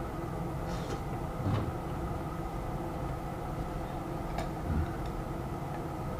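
A steady low hum with a few faint steady tones in it, and a few light clicks and taps over it: one near a second in, another at about a second and a half, and two more a little past the four-second mark.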